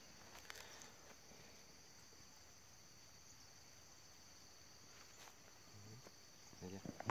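Near silence apart from faint, steady, high-pitched insect chirring, with a few soft clicks.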